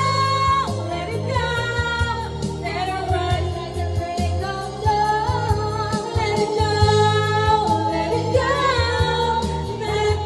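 Two women singing together into karaoke microphones over a videoke backing track, their voices amplified and holding long notes above a steady bass line.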